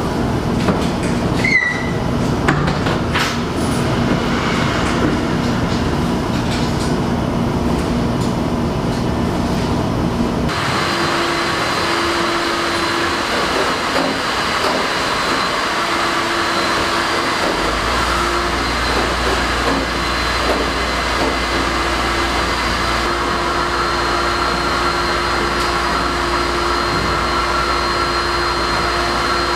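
Steady mechanical noise and hum of commercial laundromat washers and dryers running, with a few knocks in the first few seconds. The hum changes tone abruptly about a third of the way in, and a deeper low hum joins a little past halfway.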